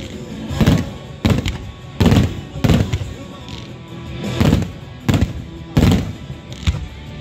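Aerial fireworks shells bursting overhead, a rapid series of loud booms about once a second, each trailing off in a short echo.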